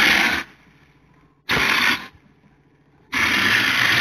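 Compressed-air hopper gun spraying cement mortar onto a wire-meshed foam panel wall: a loud rushing hiss of air and mortar that stops about half a second in, a short burst near the middle, and another spray starting about three seconds in.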